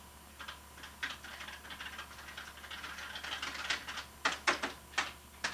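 Cash register keys and parts being worked by hand: a run of quick clicks and rattles that grows busier, ending in several sharp, louder clacks.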